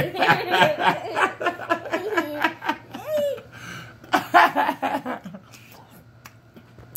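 A man and a little girl laughing together in loud bursts, which die down about five and a half seconds in.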